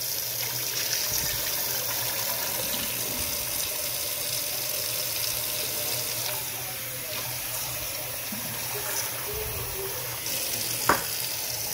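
Kitchen faucet running steadily into a stainless steel sink and into a saucepan as long grain rice is rinsed. A short knock comes near the end.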